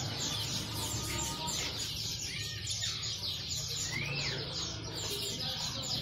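Many caged small songbirds chirping together in a fast, continuous chatter. A clearer whistled call rises and falls three times over it, above a steady low hum.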